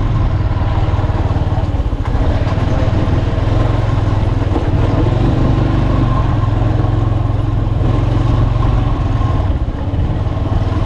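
A small engine running steadily with a constant low hum.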